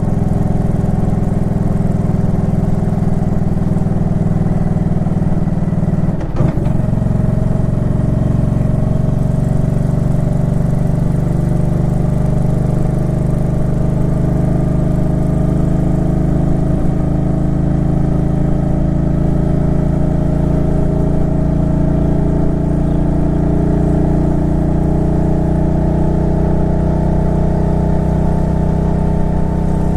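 Suzuki Intruder Classic 400's V-twin engine running under way, with a short break in the sound about six seconds in, after which its pitch climbs slowly and steadily as the bike gathers speed.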